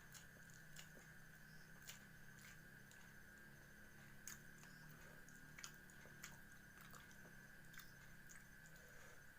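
Faint chewing of cooked catfish: soft, irregular mouth clicks and smacks over a faint steady high whine.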